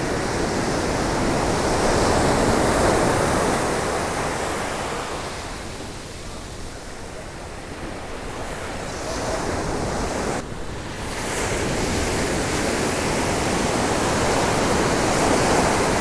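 Ocean surf breaking and washing up a sandy beach, a steady rush of water that swells about two to three seconds in, eases off, and builds again after about ten seconds.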